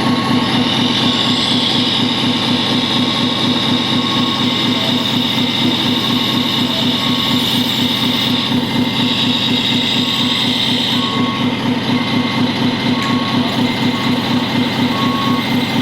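Radio-controlled scale model truck running: a steady, pulsing engine-like rumble with a high electric whine that changes pitch about halfway through, and short repeated beeps in the second half.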